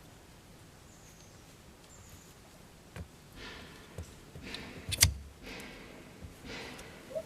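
A rubber toilet plunger worked on a wet truck door panel to pull out a shallow dent: soft suction swishes and a few clicks, with one sharp pop about five seconds in.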